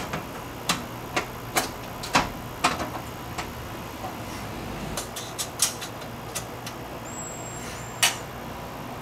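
Electric radiator cooling fan assembly knocking and clicking against the radiator and engine bay as it is worked into place, with about a dozen scattered sharp knocks, the loudest about two seconds in and near the end.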